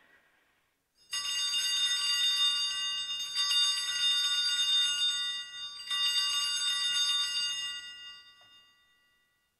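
Altar bells rung three times at the elevation of the chalice during the consecration: a cluster of small bells ringing with many steady high tones, shaken about a second in, again at about three and a half seconds and six seconds, then dying away near the end.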